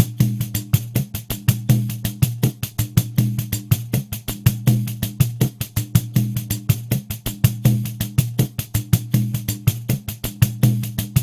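Pandeiro playing a steady rhythm at 80 beats per minute, about five strokes a second. The jingles rattle on every stroke over a recurring low tone from the drum head.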